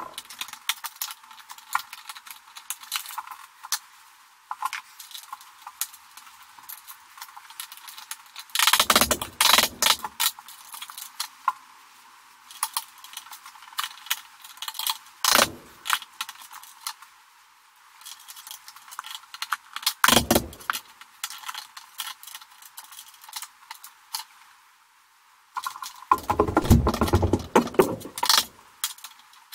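Metal clicking and rattling from a Square D breaker panel and its cable connectors as electrical cable is worked through them by hand. Several louder knocks and bumps come through, the longest stretch near the end.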